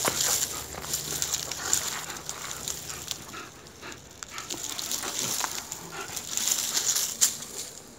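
Dry palm frond rustling and crackling as a German Shepherd tugs and shakes it, with many sharp snaps among the rustle and one louder crack shortly before the end.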